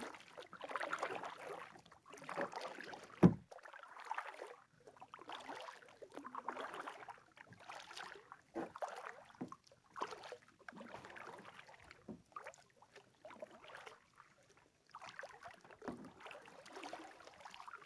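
Kayak paddle strokes: the blades dip and pull through the water again and again, with splashing and dripping. There is one sharp knock about three seconds in.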